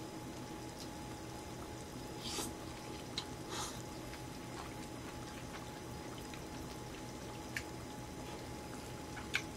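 Soft slurping sips of broth from a small bowl, twice, about two and three and a half seconds in, with a few light clicks, over a low steady hum.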